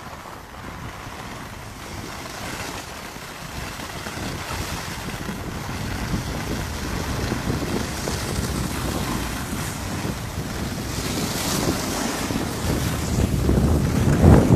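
Wind rushing over the microphone of a camera carried while skiing downhill, growing steadily louder as speed builds.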